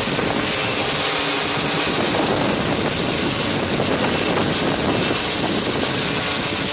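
Tarot 680 Pro hexacopter's six MultiStar 570 kV brushless motors and 13-inch carbon-fibre propellers running steadily in a hover, a wide buzzing drone with a strong hiss on top.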